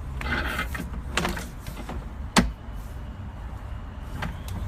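Sewer camera push cable being worked through the line: scattered knocks and clicks, with one sharp click about two and a half seconds in, over a low steady hum.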